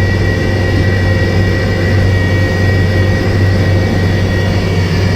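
Skid steer loader's engine running steadily, with a low hum and a steady high-pitched whine over it.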